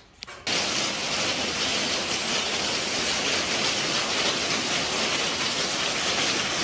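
Heavy rain pouring down on a courtyard's paving and plants, a dense steady hiss that starts suddenly about half a second in.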